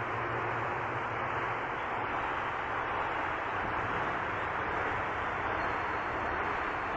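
Steady rushing noise from wind and rain picked up by the camera's microphone, processed and filtered into an effect sound with the top end cut off.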